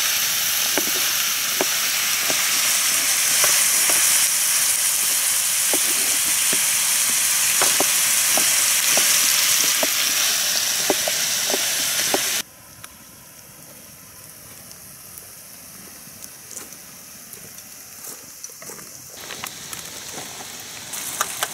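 Stewed beef with onion and carrot sizzling loudly in a frying pan on a portable gas stove, with a knife clicking through tomatoes onto a wooden cutting board about once a second. About twelve seconds in the sizzling cuts off suddenly, leaving fainter knife and handling clicks.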